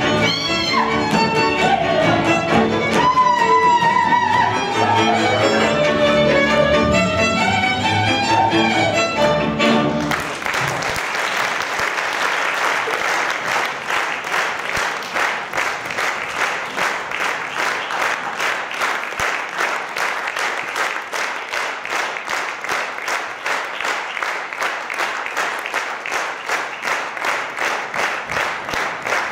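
Live Hungarian folk string band, led by violin, plays the closing bars of a dance tune; the music ends about ten seconds in. Audience applause follows and keeps up as clapping in a steady, even rhythm.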